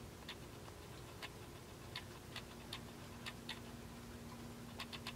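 Faint light clicks at uneven intervals, a few close together near the end, over a steady low hum.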